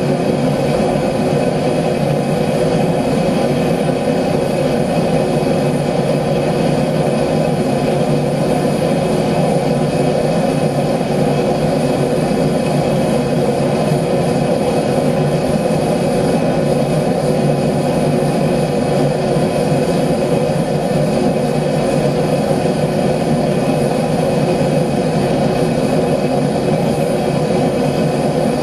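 Gas-fired forge burner running with a steady, unchanging rush of flame.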